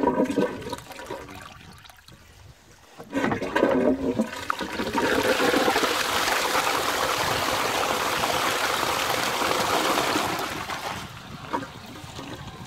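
A cast-iron high-level cistern with a bell siphon flushing into a toilet pan. After a short burst about three seconds in, the flush water rushes steadily into the bowl for about six seconds, then dies down to a quieter trickle.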